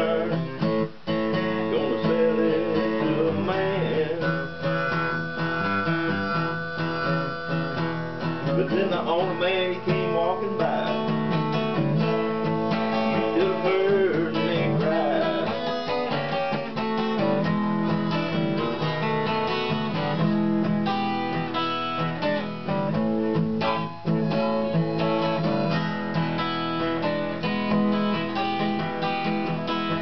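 Steel-string acoustic guitar played solo in a blues style, strummed and picked through an instrumental passage.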